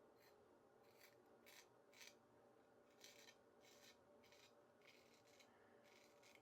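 Faint short scraping strokes of a Dubl Duck 6/8 full hollow straight razor cutting through lathered stubble, a little under two strokes a second.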